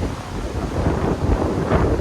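Wind buffeting the microphone in uneven gusts, with the sea's surf behind it.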